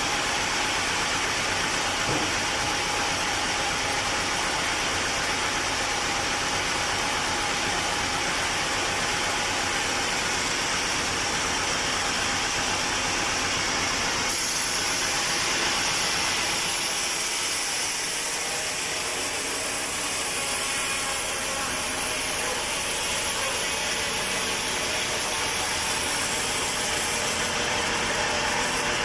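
Sawmill machinery running steadily, a continuous mechanical noise with a constant hum; about halfway through the sound shifts and the low rumble thins out.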